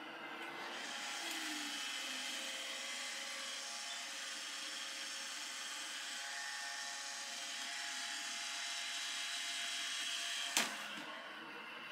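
iRobot Roomba Max 705 Combo robot vacuum running. About a second in its suction motor steps up to a louder, higher whine, as in carpet boost, and holds steady. Near the end a single sharp knock comes, and the whine drops back to the lower level.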